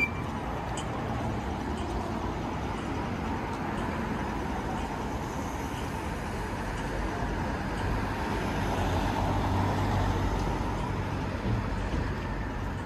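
City street traffic: steady road noise, with a motor vehicle passing and growing louder about eight seconds in, then fading after eleven.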